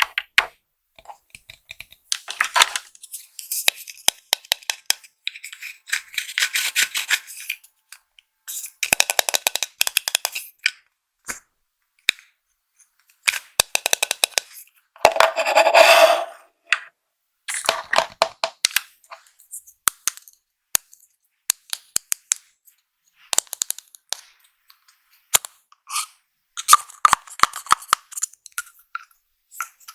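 Makeup packaging being unwrapped and handled: bursts of crinkling and rustling plastic, broken by many sharp clicks and taps of plastic cases.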